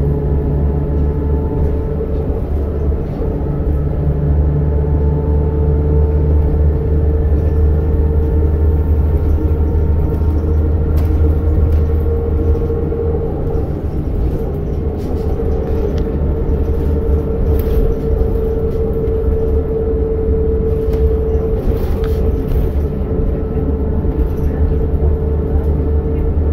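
New Flyer C40LFR compressed-natural-gas transit bus running, heard from inside the passenger cabin: a steady low engine rumble with a steady mid-pitched whine over it and a few faint rattles.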